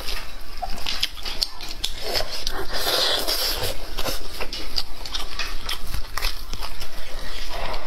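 Close-miked eating of pork knuckle: gloved hands tear the meat and skin apart, with wet chewing and lip-smacking in a run of quick clicks and smacks. A longer, denser wet noise comes about three seconds in.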